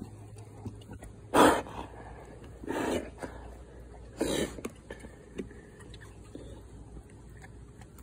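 A German shorthaired pointer blowing short breaths out through its nose right against the microphone, three times, the first the loudest.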